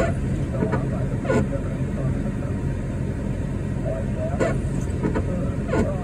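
Car engine running steadily with the low rumble of driving, heard from inside the cab. About six brief sweeping noises, each falling in pitch, sound over it.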